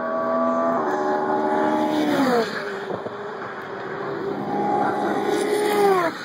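Two GT race cars pass at speed one after the other. Each engine note holds steady and then drops sharply as the car goes by, the first about two seconds in and the second, the louder, near the end.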